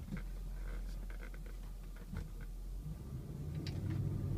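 Low engine hum inside the cabin of a 2000 Toyota Land Cruiser, with a few faint light clicks; about three seconds in, the engine note grows louder as the truck pulls away up a slope.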